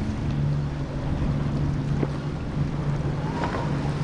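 Powerboat engines running at a steady, unchanging pitch, with water rushing and wind buffeting the microphone.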